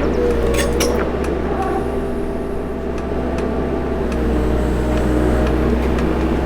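Excavator digging: its diesel engine runs under load with a steady low drone and tones that shift slightly in pitch. A few sharp clanks and scrapes come in the first second, with another knock about three seconds in.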